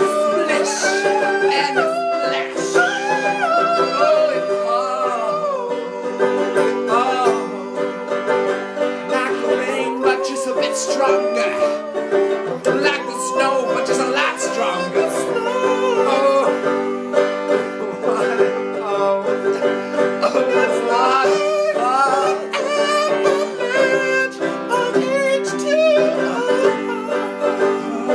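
A song: a voice singing over plucked-string accompaniment.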